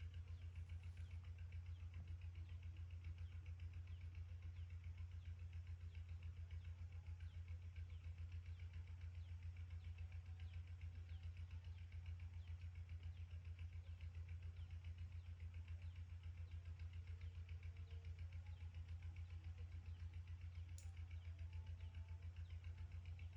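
A steady low hum with a fast, even flutter, like a small electric motor or fan running.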